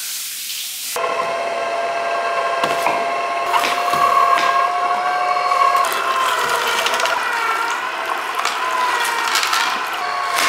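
Tap water runs briefly, then a vertical slow (masticating) juicer runs with a steady motor whine. Crunching and clicking come as vegetables such as ginger and celery are pressed through its auger.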